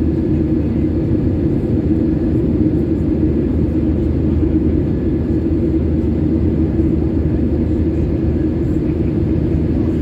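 Steady low drone of a jet airliner's engines and rushing air, heard inside the cabin while the plane climbs out after takeoff.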